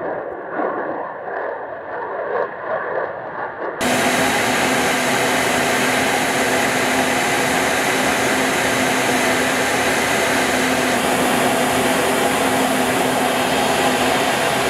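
Jet engine of an F-35I fighter rumbling as it flies past overhead, unsteady and muffled. About four seconds in, this cuts off suddenly and is replaced by a louder, steady rushing noise of airflow and engines heard from an aircraft in flight, with a faint steady hum.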